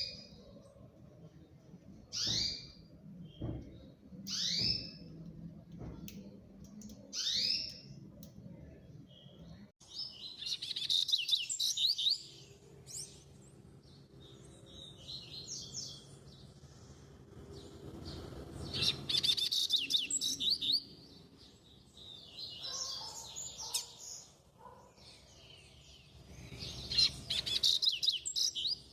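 Birds calling and singing: first a short, high, sweeping whistle repeated four times about every two and a half seconds, then, after an abrupt change about ten seconds in, bursts of rapid, warbled song phrases about two seconds long.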